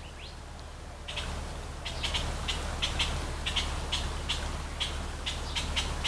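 Quick, high-pitched kissing squeaks made with the lips to coax a cat, about three a second and irregular, starting about a second in.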